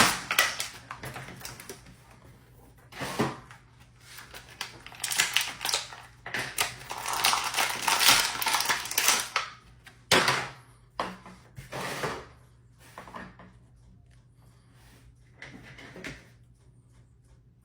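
Toy packaging being handled and opened: crinkling, tearing and scattered knocks and taps, busiest in a long stretch of rustling a few seconds in, then thinning to occasional taps.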